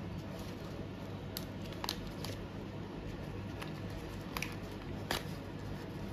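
A few light, sharp clicks and taps, about six spread over several seconds, over a steady low hum.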